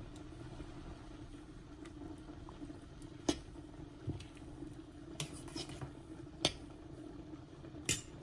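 Spoon stirring in a stainless steel saucepan of water, vegetables and quinoa-brown rice blend, with several sharp clinks against the pan, over a faint steady hum.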